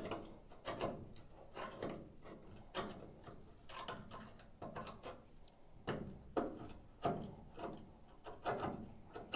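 Pliers tearing and picking away rusted-through sheet steel from a VW bus's lower A-post: a string of short, irregular scrapes and cracks, about one or two a second.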